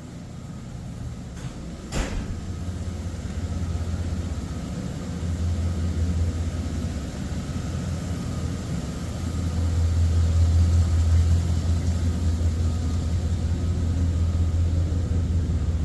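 Steady low engine rumble of a running vehicle, growing louder, with a single sharp knock about two seconds in.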